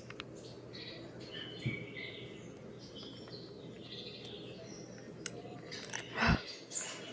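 Small birds chirping in short high calls over a steady low hum, with a short bump a little after six seconds.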